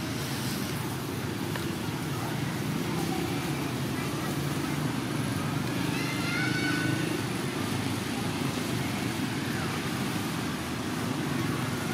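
Steady low drone of a running motor, with a brief high-pitched call about six seconds in.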